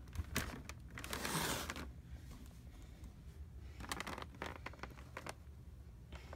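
Clear plastic blister tray sliding out of a cardboard box and crinkling as it is handled. There is a rasping rustle about a second in and a quick cluster of crackles around four seconds.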